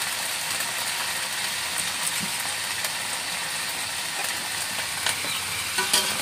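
Leafy greens sizzling in an aluminium wok over a wood fire: a steady hiss with small crackles, and a few clinks of the spatula on the wok near the end.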